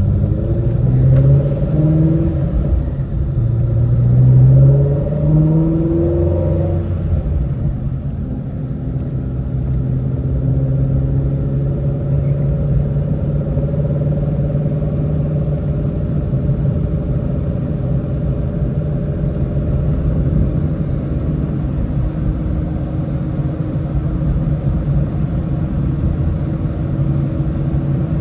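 Ford Shelby GT350's flat-plane-crank 5.2-litre V8 heard from inside the cabin, accelerating through the gears: its pitch rises, drops at each upshift and rises again about three times in the first seven seconds. After that it settles into a steady cruising drone.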